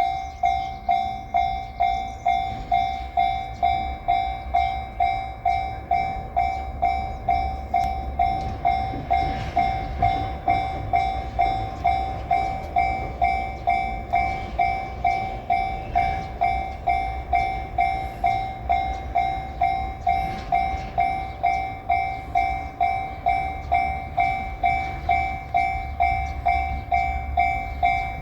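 Japanese railway level-crossing warning bell ringing, a steady electronic clang repeating about twice a second. A low rumble runs underneath.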